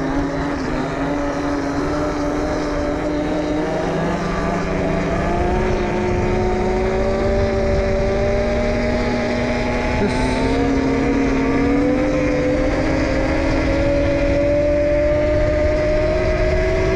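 A 72-volt, 5000-watt electric pit bike's motor and drivetrain whining under way, the pitch climbing slowly and steadily as the bike gathers speed. Steady wind rumble on the handlebar-mounted camera runs under it.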